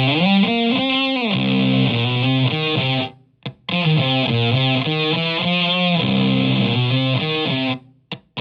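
Electric guitar through a Zonk Machine fuzz pedal and a tube amp, playing fuzzy distorted riffs. The first phrase opens with a rising slide; it breaks off about three seconds in, followed by a short stab and a second run of notes, ending with another quick stab.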